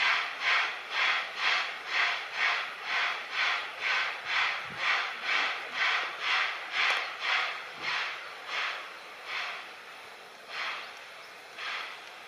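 JNR Class C10 steam tank locomotive C10 8 pulling away from a station, its exhaust chuffing in a regular beat of about two a second. After about eight seconds the chuffs grow weaker and further apart.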